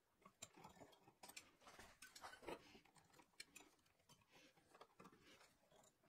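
Faint, irregular clicks and ticks of needle-nose pliers handling electrical wire while excess cable is trimmed and the conductors are worked at a switch box.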